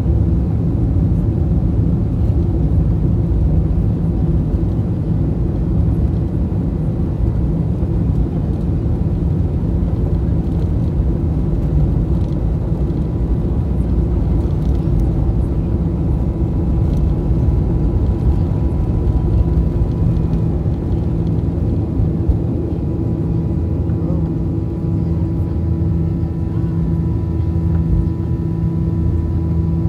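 Boeing 737's jet engines at takeoff power, heard from inside the cabin as a loud, steady, low noise, with the rumble of the wheels on the runway beneath it. About two-thirds of the way through, the lowest rumble eases as the aircraft lifts off, and steadier engine tones come forward.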